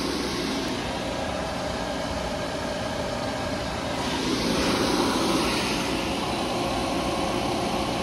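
Refrigerant recovery machine running steadily, its compressor pulling R-134a out of an air-conditioning system into a recovery cylinder.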